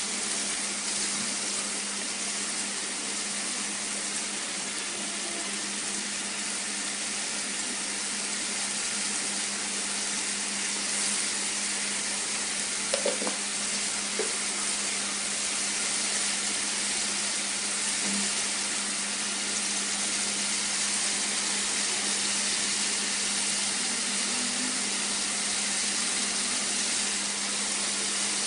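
Sliced onions sizzling steadily in hot oil in a pan, over a low steady hum, with a couple of faint small taps about halfway through.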